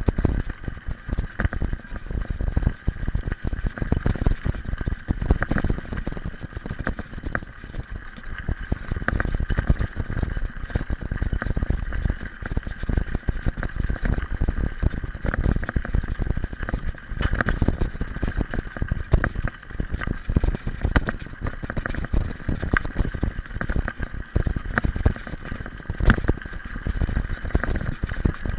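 Bicycle rolling over a loose gravel road: a continuous crunching rumble from the tyres with many small rattling knocks as the bike jolts over the stones.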